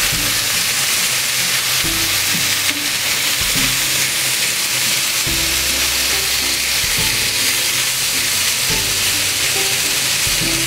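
Minced chicken sizzling in oil in a hot non-stick frying pan while a silicone spatula stirs it through the spices, a steady hiss throughout.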